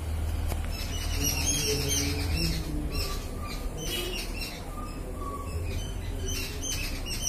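Many small birds chirping and twittering in quick clusters of short high calls, with a steady low rumble underneath.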